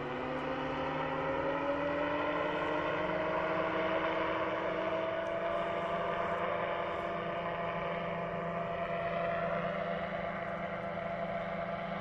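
Paramotor's engine and propeller running in flight, a steady drone whose pitch rises over the first few seconds and then holds.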